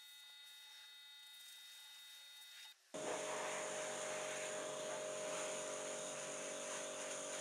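Pressure washer running steadily, a hum of several steady tones. About three seconds in it turns suddenly much louder, with a strong steady hum and the hiss of the water jet hitting a wooden drawer.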